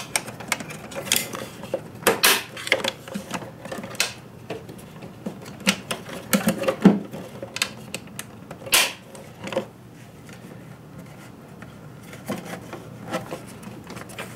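Irregular plastic clicks, knocks and rubbing as an air filter is pressed and seated into the BMW S1000RR's plastic airbox by hand. The sharpest knocks come about two, seven and nine seconds in.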